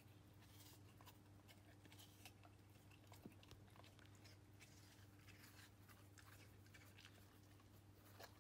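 Near silence: a steady low hum with faint scattered clicks and ticks.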